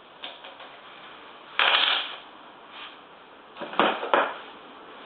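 Metal parts of a disassembled air-compressor head being handled: a short scrape about a second and a half in, then a few sharp clicks and rattles near four seconds.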